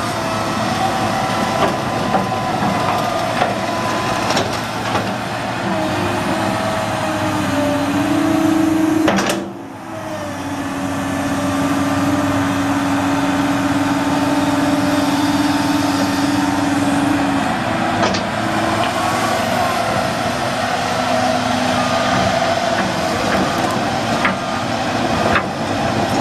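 Long-reach Komatsu PC220LC-6LE excavator's diesel engine running under load while the boom and arm work, with a steady whine held over the engine for several seconds at a time. The sound drops briefly and breaks off sharply about nine seconds in, then picks up again.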